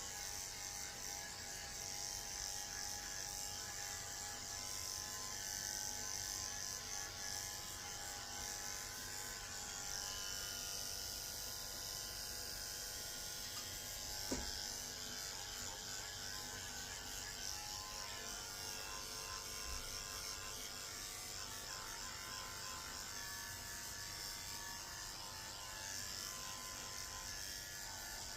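Electric dog grooming clippers running steadily, shaving through a matted coat, with a single brief click about halfway through.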